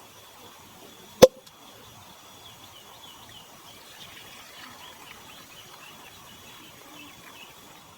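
Outdoor ambience with faint bird chirps and a steady high insect tone, broken about a second in by one loud, sharp click.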